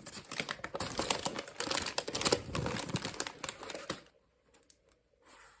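Rapid, irregular light clicks and crinkles from small objects handled close up, stopping suddenly about four seconds in.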